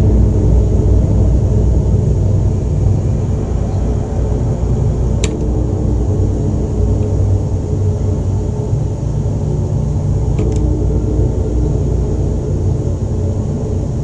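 A deep, steady rumbling drone. A bell is struck twice, about five and ten seconds in; each strike is a sharp ping followed by a ringing of a few steady tones that fades away.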